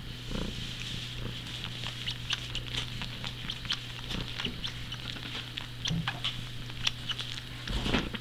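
A cat suckling on fabric like a nursing kitten: rapid, irregular wet clicking and smacking, several per second, with a louder cluster near the end.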